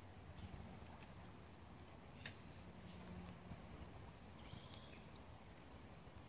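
Near silence: faint outdoor background with a low steady hum and a few faint clicks.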